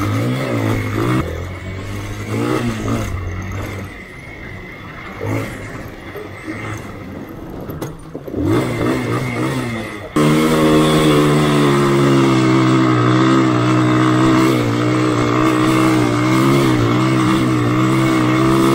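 Motor vehicle engines revving up and down at an off-road event. About ten seconds in, one engine jumps to high revs and holds them steadily, louder than before.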